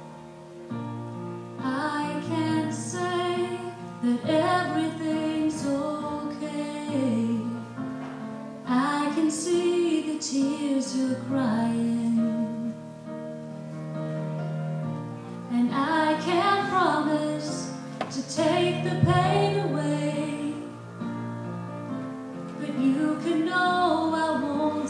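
A slow song with a woman's voice singing phrases over guitar accompaniment, with short pauses between the sung lines.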